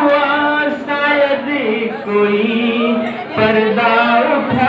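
A man singing a Hindi song into a handheld microphone, amplified, holding long notes with short breaks between phrases.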